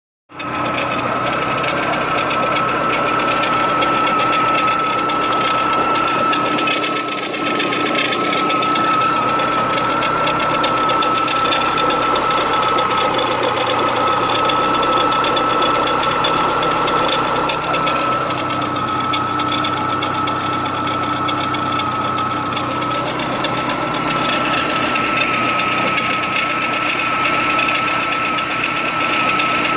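Renault Clio 182's 2.0 16-valve four-cylinder engine running steadily, with a constant high-pitched whine over its mechanical clatter. The noise comes from the top left of the engine near the cam pulley, and the owner wonders whether it is an early sign of a failing dephaser (cam variator), though it lacks the usual diesel-like dephaser rattle.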